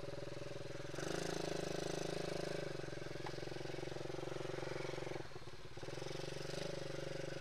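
Small ATV engine running under a rider, picking up revs about a second in, easing off briefly around the middle, then pulling again.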